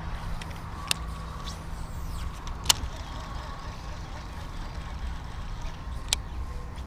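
Steady low rumble with a faint steady hum around a small fishing boat, broken by three short sharp clicks about one, three and six seconds in.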